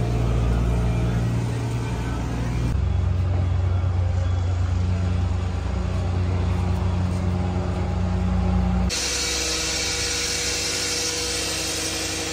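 Diesel engines of construction machinery running with a steady low drone. The drone changes abruptly about three seconds in and again about nine seconds in, when a steady hiss joins it.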